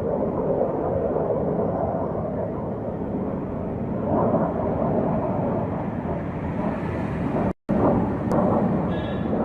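F-16 fighter jet flying low overhead, a steady deep roar that swells about four seconds in. The sound cuts out for an instant near the end.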